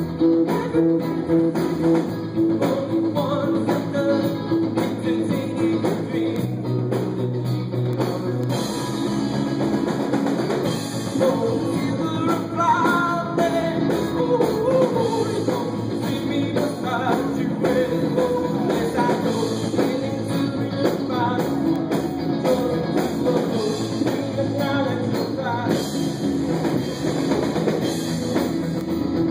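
Indie pop band playing live: drum kit, guitars and a sung vocal line. A steadily repeated note carries the first few seconds, and the singing comes forward from about halfway through.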